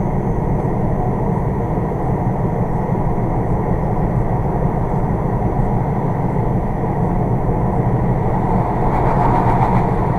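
Steady road and engine noise of a moving car heard from inside the cabin, swelling a little near the end.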